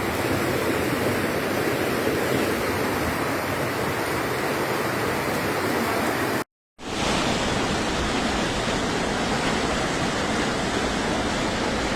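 Floodwater rushing steadily. About six and a half seconds in it cuts to silence for a moment, then resumes a little duller.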